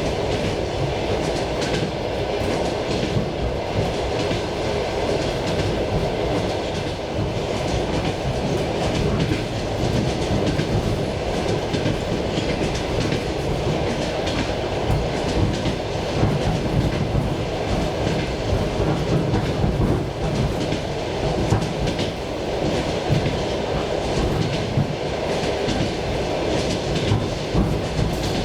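Suburban electric train running at speed, heard from inside the passenger carriage: a steady rumble with the wheels clattering over rail joints.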